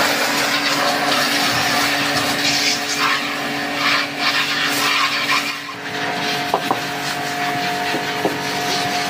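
High-pressure washer running, its water jet hissing hard against the plastic inner basket of a top-loading washing machine to blast dirt out of the crevices. About six seconds in, the hiss thins out and a few sharp clicks come through.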